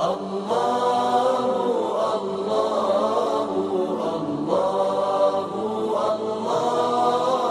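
Wordless vocal chanting: several voices hold long notes in phrases of a second or two.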